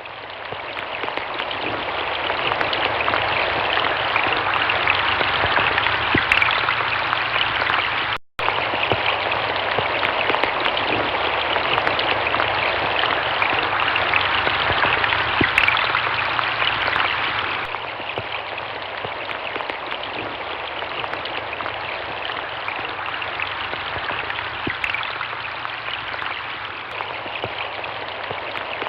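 Steady rain falling, an even hiss with scattered drop ticks. It fades in at the start, cuts out for an instant about eight seconds in, and becomes somewhat quieter from about seventeen seconds.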